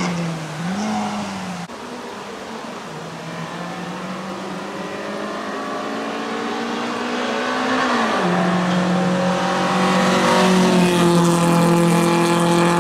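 Peugeot 106 1.4 XSi rally car's four-cylinder petrol engine revving hard under acceleration uphill. Its pitch climbs steadily, drops at a gear change about eight seconds in, then climbs again, growing louder as the car approaches.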